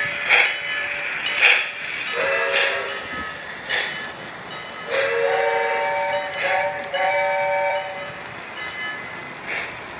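Model trains' electronic sound system blowing a chord whistle, a short blast about two seconds in and a longer one from about five to eight seconds, over the trains running past on the track with a regular pulsing sound.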